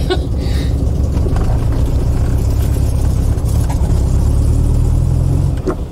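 1968 Volkswagen Type 3 Fastback's air-cooled flat-four engine idling steadily, heard from inside the cabin. There is a click near the end and the engine sound drops away.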